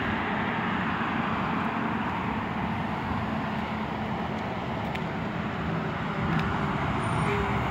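Steady street traffic noise with a diesel engine running at an even low pitch.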